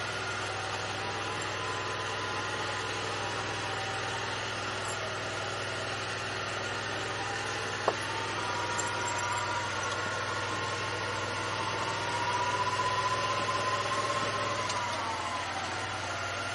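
Yamaha Wolverine side-by-side's engine running steadily while driving, heard from the cab. A whine rises and falls in pitch over the steady hum and grows louder about twelve seconds in before easing back near the end. A single sharp knock comes about eight seconds in.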